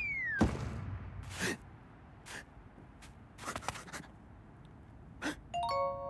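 Cartoon sound effects: a descending whistle ends in a thud with a low rumble. A few short swishes follow, then a bright chiming ding near the end that rings on.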